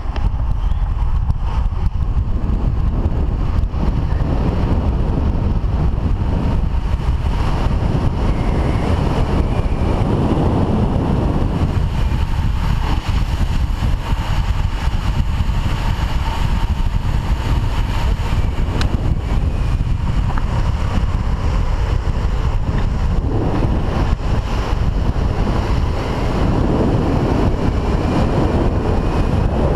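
Steady rush of wind on the microphone over the rumble of longboard wheels rolling on asphalt at speed.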